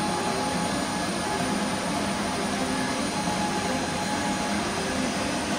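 Jet aircraft engine noise: a steady, even rushing roar that holds level without rising or falling.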